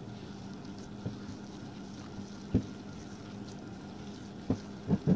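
A hand mashing and kneading soft nankhatai dough in a glass bowl, with a few dull knocks, one about two and a half seconds in and three close together near the end. A steady low hum runs underneath.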